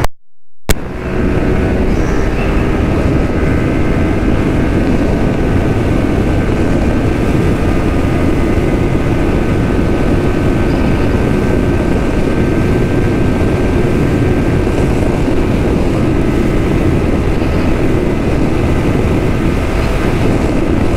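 155 cc single-cylinder sport motorcycle engine running at speed with steady revs, mixed with heavy wind rush on the microphone. The sound drops out briefly with a click about half a second in.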